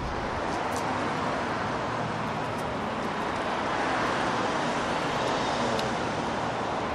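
Steady street noise: cars passing on the road beside the sidewalk, mixed with a pet stroller's wheels rolling over concrete.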